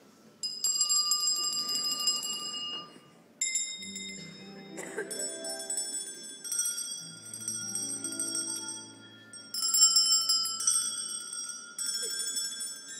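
Bell-like notes struck one after another, roughly every second or two, each ringing on with high overtones. Softer, lower musical notes sound underneath through the middle.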